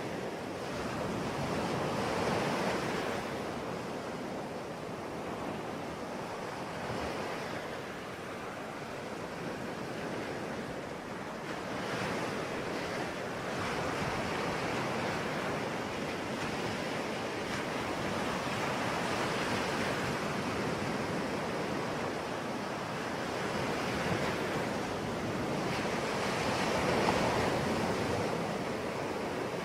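Ocean waves breaking and washing on a shore, a continuous surf rush that swells and eases slowly, with louder surges about every few seconds.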